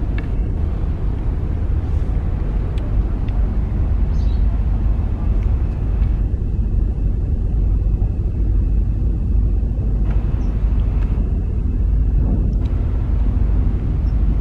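Steady low rumble of a large car ferry under way, with wind buffeting the microphone on the open deck.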